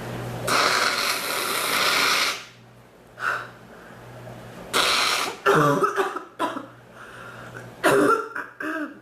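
A woman coughing: one long cough about half a second in, then clusters of shorter coughs in the second half, some with a voiced, pitched sound.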